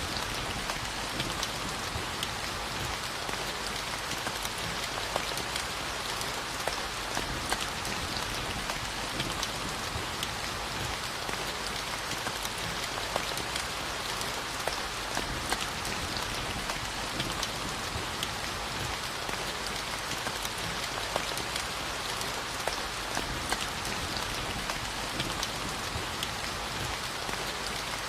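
Steady rainfall, a dense even hiss of rain on a surface with many individual drops ticking throughout.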